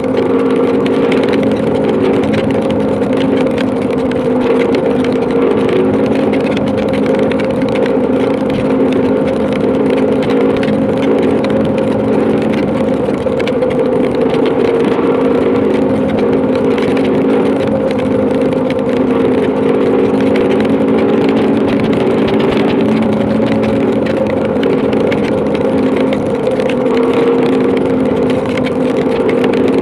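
Motorcycle engine running steadily at cruising speed, a constant droning hum, under a continuous rush of wind and heavy rain on the microphone.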